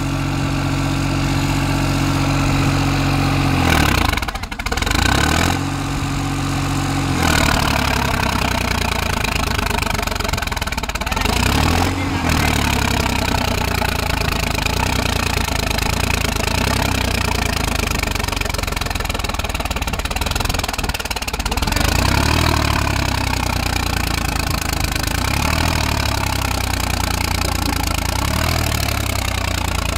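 Diesel tractor engines working hard as cage-wheeled tractors churn through deep, flooded paddy mud. The engine sound changes abruptly several times where clips are cut together. In the last third the engine note rises and falls over and over as the throttle is worked in the mud.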